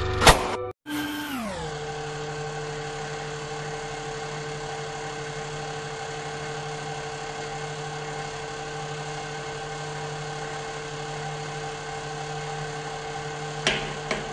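Hydraulic press pump motor running with a steady hum and whine. Its pitch sinks over the first second or so after a cut, then holds. A loud sudden snap comes right at the start, and near the end there are two sharp cracks as a lipstick is crushed under the ram.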